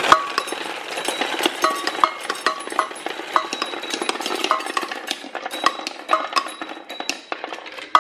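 Glass marbles running through a wooden marble machine: a steady rolling rattle with many sharp, ringing clicks as marbles knock against each other and against the wooden bowl, pins and lift wheel.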